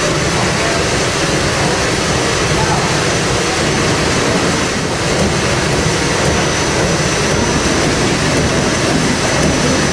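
Steady, loud machinery noise of a steamship's engine room: oil-fired boiler burners and a triple-expansion marine steam engine running.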